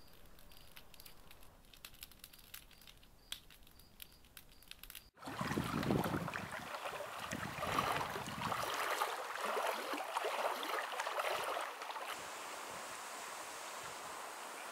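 Faint night quiet with soft ticks and a high chirp repeating, then, after an abrupt cut about five seconds in, louder outdoor noise of wind on the microphone and water lapping at a lakeshore, settling into a steady windy hiss near the end.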